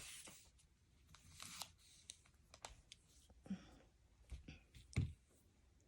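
Lego plastic pieces being handled, faint scattered clicks and a brief rustle, with a louder knock about five seconds in.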